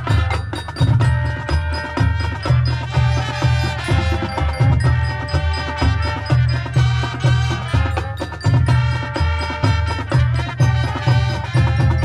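High school marching band playing its field show music: held wind chords over a repeating low beat, about two a second, with percussion throughout.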